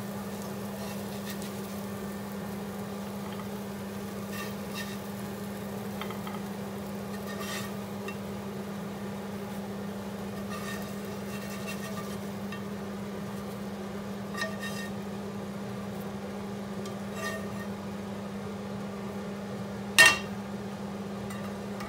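Fried herring roes being served from a frying pan onto toast: a fish slice scrapes and taps against the pan now and then, over the steady hum of a cooker extractor fan. Near the end comes one sharp clank as the pan is set back down on the gas hob.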